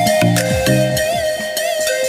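Background music: an instrumental cover of a traditional Rabha song, with an ornamented, sliding melody over held bass notes that step downward, and no drum beat.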